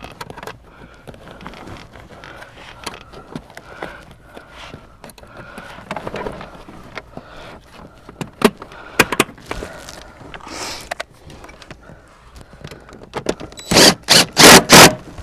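A seat mounting bolt being fitted by hand: light metal clicks and scrapes of handling, then near the end four or five quick, loud rasping strokes as the bolt is tightened, typical of a ratchet wrench.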